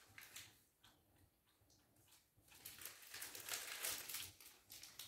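Faint crinkling and rustling of plastic-wrapped packs of needles being handled, with small clicks, loudest from about two and a half to four seconds in.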